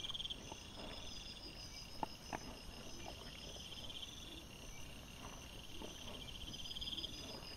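Night insects, crickets, chirping in repeated high trills every second or two over a steady fainter pulsing, with a few faint clicks and rustles from the ground, the sharpest about two seconds in.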